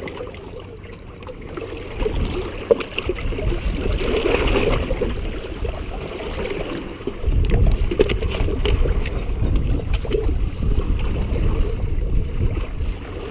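Water sloshing and splashing against shoreline rocks as a large striped bass is grabbed by hand and lifted out, with scattered knocks of handling, under a low wind rumble on the microphone.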